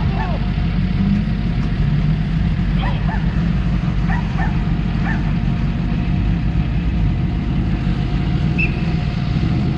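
Off-road trial vehicles' engines running with a steady, loud, low rumble. A dog barks a few times over the engine noise.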